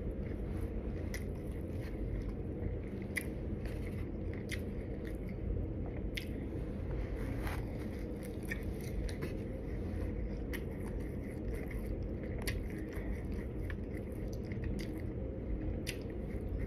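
Close-up mouth sounds of biting and chewing crispy fried tacos: scattered crunches and clicks over a steady low background hum.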